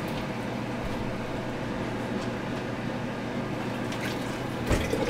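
Glass canning jars being filled with thick tomato sauce from a pot: soft wet scooping and pouring over a steady low kitchen hum, with a light knock of glass or pot near the end.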